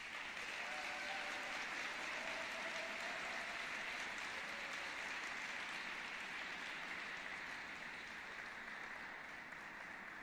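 Audience applauding after a figure skating program, a steady wash of clapping that begins to die away near the end.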